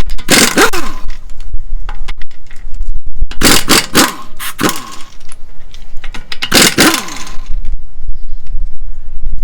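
Power impact wrench run in three bursts, each spinning down in pitch as it is released, typical of wheel bolts being run off or on.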